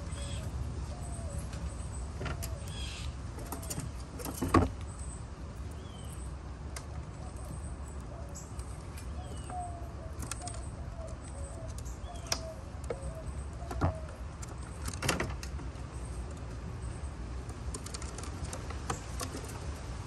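Outdoor ambience: a steady low rumble under a dove's low notes repeated about twice a second, stopping and starting again, with a few faint high bird chirps. Several sharp knocks stand out, the loudest about four and a half seconds in.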